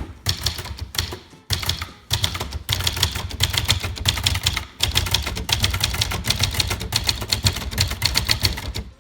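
1964 Brother De Luxe manual portable typewriter being typed on at speed: a dense run of keystroke clacks as the typebars strike the paper, with short pauses about one and a half and five seconds in.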